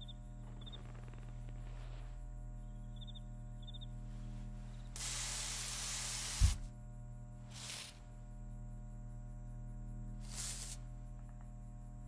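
Aerosol can of silly string spraying: one hiss of about a second and a half that ends in a sharp thump, then two shorter hisses a few seconds apart. A few faint cricket chirps near the start, over a steady low hum.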